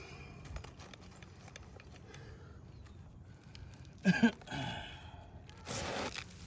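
Scattered knocks and scuffs of work on a shingle roof: a pair of sharp sounds about four seconds in and a short scraping rustle near the end.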